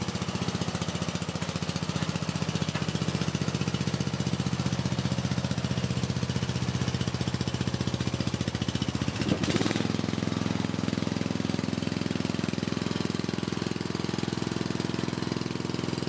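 Ride-on lawn mower engine running steadily as the mower drives down a pair of aluminium checker-plate ramps. A single short knock comes about nine seconds in, after which the engine note changes.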